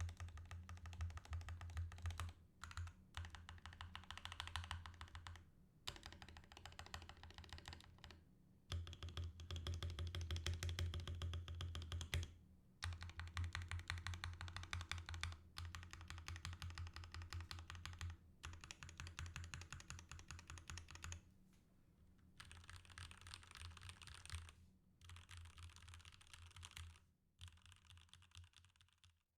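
Fast typing on a stock Royal Kludge RK61 60% mechanical keyboard: rapid runs of key clicks a few seconds long, broken by short pauses.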